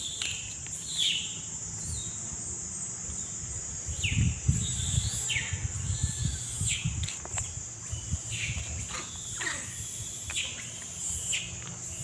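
Birds chirping in short downward-sliding calls over a steady high insect buzz, with a few low thumps about four seconds in.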